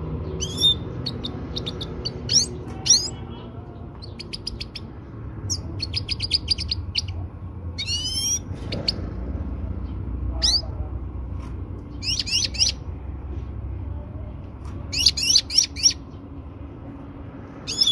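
Female European goldfinch calling, the call used to stir a breeding male: short bursts of quick high twittering chirps and fast sweeping notes, separated by pauses of a second or two, over a low steady hum.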